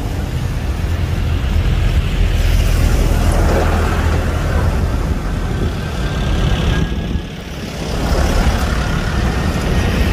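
A steady, loud, low engine rumble with a hiss over it, dipping briefly about seven seconds in.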